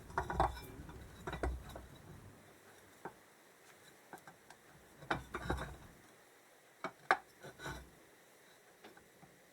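Scattered light knocks and clinks of metal engine parts being handled as the generator stator and its wiring are worked into position on a motorcycle engine, in a few short clusters.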